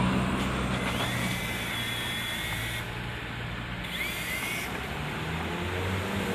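Toy remote-control helicopter's small electric motor whining over a steady rotor hum. The whine rises in pitch about a second in and again near four seconds in as the throttle is pushed up.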